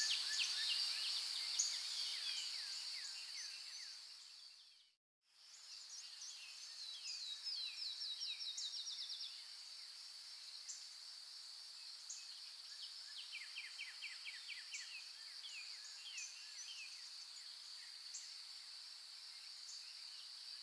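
Nature ambience of a steady high insect drone with small birds chirping and trilling over it. It fades out about four seconds in and comes back a second later.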